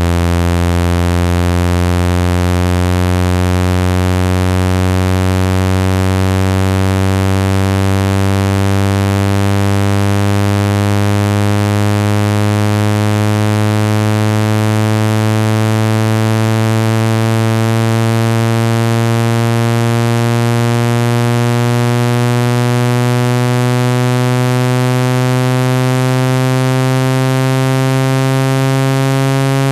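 Speaker-cleaning tone: a loud, steady, buzzy electronic tone full of overtones, gliding slowly upward in pitch from a low hum. It is meant to shake dust out of a phone speaker's grille.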